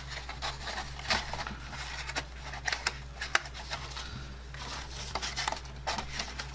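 Cardstock box being handled and pressed into shape by hand: irregular taps, scrapes and paper rustles as the card panels rub and knock against each other and the cutting mat.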